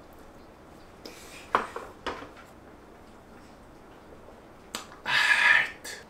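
A metal spoon and a dish clicking lightly three times while eating, then a short breathy exhale near the end.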